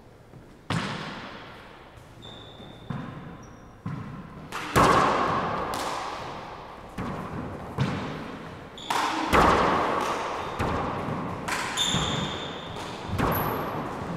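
Rubber handball rally in an enclosed four-wall court: about a dozen sharp smacks of the ball off gloved hands and the walls at uneven spacing, each ringing on in a long echo. Short high squeaks of sneakers on the hardwood floor come in between.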